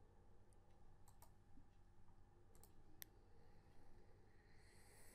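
Faint computer mouse clicks, a handful of sharp single clicks spread over a few seconds against near-silent room hum.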